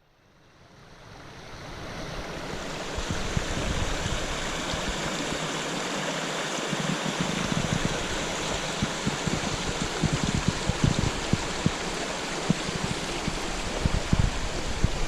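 Creek water running and cascading over rocks as a steady rush, fading in over the first few seconds, with scattered low thumps of wind on the microphone.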